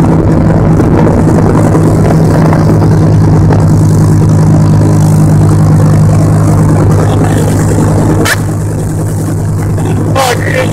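Motorboat engine running hard at towing speed, a steady low hum over the rush of the churning wake. Near the end the level drops slightly and a few short high cries cut through.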